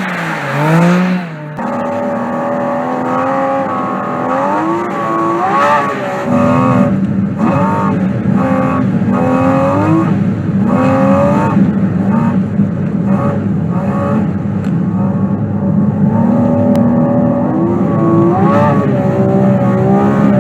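Porsche 718 Cayman GT4 RS's naturally aspirated flat-six engine and exhaust, revving up and dropping back again and again as the car is driven hard.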